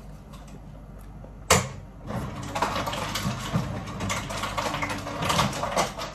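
A sharp knock, then about four seconds of close crackling and rustling with many small clicks, loudest near the end: a plastic-gloved hand handling things right at the microphone.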